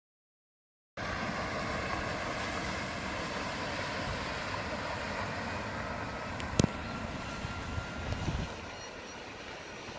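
Steady rushing outdoor noise that starts abruptly about a second in, with one sharp click about six and a half seconds in and a few soft thumps shortly after.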